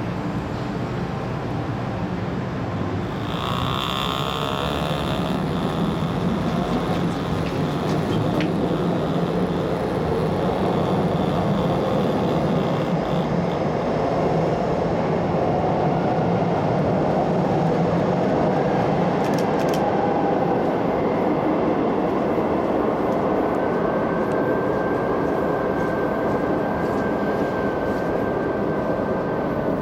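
MTR metro train pulling out of the station and running past into the curving tunnel: a steady rumble of wheels and motors that builds as the cars go by. A brief electronic beeping sounds about three seconds in, and a thin high squeal sets in about twenty seconds in as the train takes the sharp curve.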